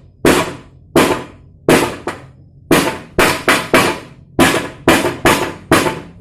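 A plastic hammer tapping repeatedly on the drain plug at the bottom of an old Royal Enfield's front fork lower tube, about a dozen sharp knocks, some in quick runs of three. The taps drive the fork's damper piston into the tube so the bottom tube can be pulled off.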